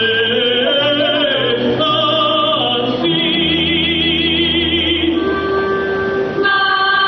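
Show-tune music with singing over orchestral accompaniment: long held notes, some sung with vibrato, and a change of chord near the end.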